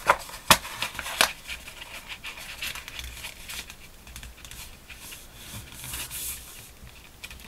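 Scored paper being folded and handled by hand: three sharp crackles in the first second or so as the creases are bent, then softer rustling and crinkling of the sheet.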